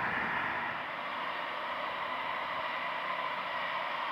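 Jet airliner's turbofan engines heard as it climbs away after takeoff: a steady, even rush of engine noise with a faint whine.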